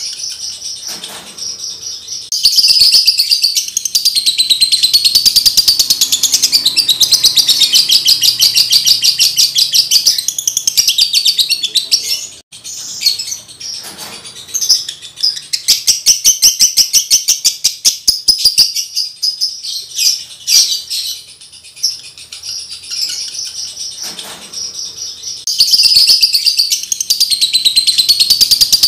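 Male lovebird in breeding condition singing a long, rapid chattering song: a fast stream of high chirps that runs on for many seconds. It breaks off for a moment about twelve seconds in, thins out between about eighteen and twenty-five seconds, then comes back at full strength.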